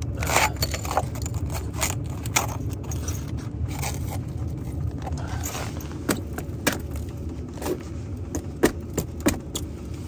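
Ice being broken and scraped off a van's frozen door sill by hand: a string of sharp cracks, clinks and scrapes as pieces snap off, over a steady low rumble.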